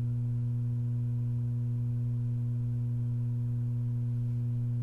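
Steady electrical hum: one deep, unchanging tone with fainter evenly spaced overtones above it.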